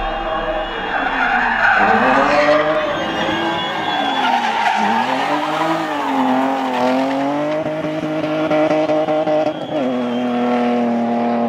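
BMW E36 coupe race car drifting through a hairpin. Its engine revs rise and fall again and again as the tyres squeal and skid, and the revs hold steady near the end.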